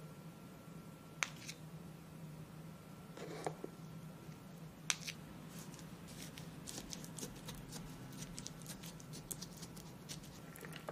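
Small plastic spoons clicking and scraping against a plastic toy tray while mixing cream and chopped strawberries: a few sharp clicks, then a quick run of light clicks in the second half. A steady low hum lies underneath.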